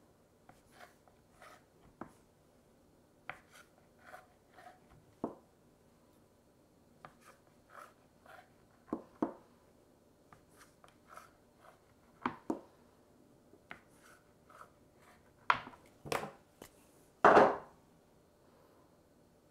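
Chef's knife cutting a sheet of cheese-filled puff pastry into strips, the blade tapping and knocking on the chopping board in short, irregular strokes, with a few louder knocks near the end.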